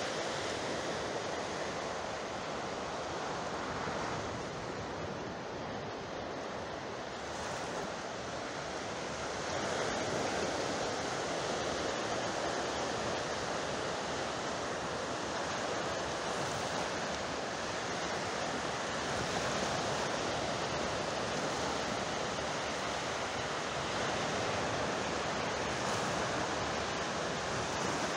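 Sea surf washing steadily, an even rushing noise that dips slightly for a few seconds and then fills out again about ten seconds in.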